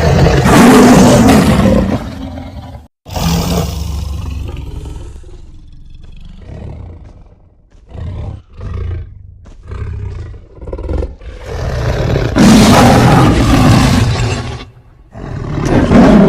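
Saber-toothed tiger creature sound effect: loud big-cat roars, one long one that fades out, then a run of short snarls, then two more loud roars near the end.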